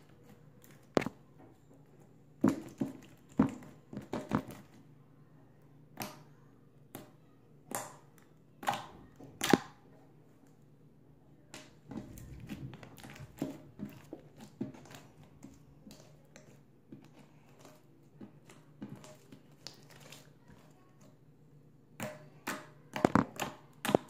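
Gray glossy slime being squeezed and pressed by hand, giving irregular sticky clicks and pops with soft squishing between them, the pops bunching in short flurries, the busiest near the end.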